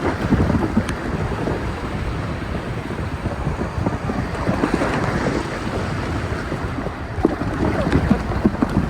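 Wind buffeting the microphone in heavy, irregular gusts over rushing, splashing water.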